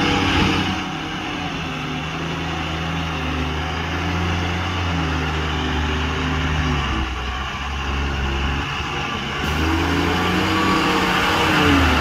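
Diesel engine of a loaded Tata tipper truck pulling along under load, its pitch stepping up and down every few seconds, getting louder near the end as the truck passes close.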